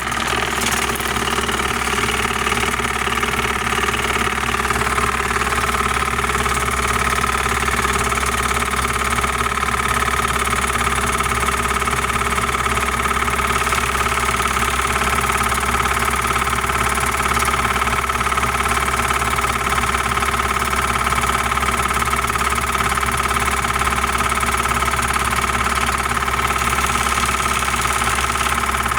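Waterpik oral irrigator's pump motor running at a high setting, a steady buzzing hum, as its water jet sprays onto air-conditioner fins.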